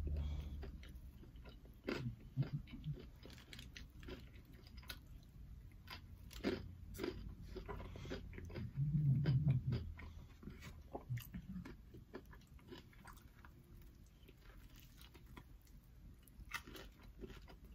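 A person eating crispy fried chicken tenders close to the microphone: irregular crunchy bites and chewing, busiest in the first half and sparser later.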